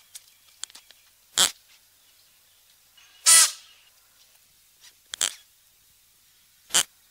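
Klipspringer calling: four short, sharp calls spaced about one and a half to two seconds apart, the second one a little longer and more tuneful, with a few faint clicks before the first.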